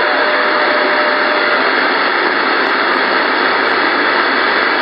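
Steady hiss of open-squelch band noise from an ICOM 746 transceiver's speaker, between stations on the CB band. A faint steady whistle sits in the hiss for the first second and a half.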